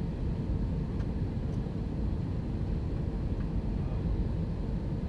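Steady in-cabin noise of an Airbus A321-231 on approach with its flaps extended: a low rumble of airflow and its IAE V2500 turbofan engines, with a faint steady hum.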